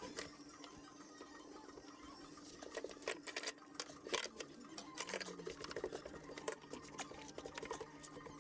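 Quick irregular clicks and scraping from hand work on a car's bare floor, busiest from about halfway through, over a steady low hum.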